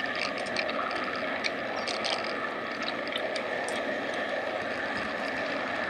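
G scale model train running along garden track: a steady rolling and motor noise, with scattered light clicks from the wheels on the rails in the first few seconds.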